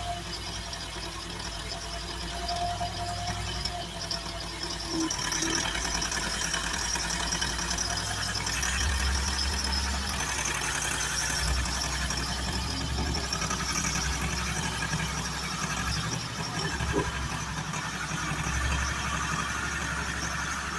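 Hymac 370C backhoe loader's engine running, its note rising and falling in steps and running louder from about a third of the way in, as when the machine is worked under load.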